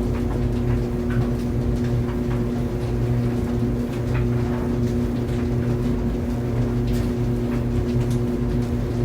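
Tumble dryer running: a steady motor-and-drum hum with a low rumble, and faint light ticks scattered through it.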